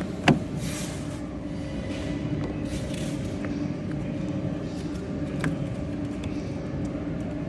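Steady low mechanical hum with a few held tones, with one sharp click shortly after the start and a couple of faint ticks later.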